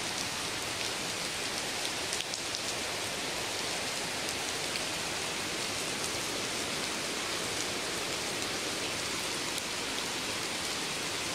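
Steady heavy rain falling onto a pool of standing water: an even hiss with scattered small drop ticks throughout.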